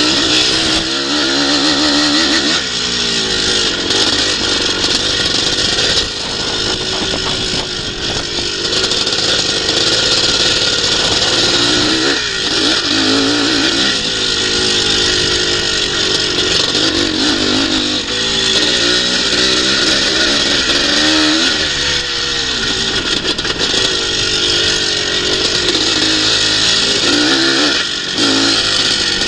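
Onboard sound of a twinshock motocross bike racing: the engine revs rise and fall over and over as the rider accelerates and backs off, over heavy wind rush on the microphone.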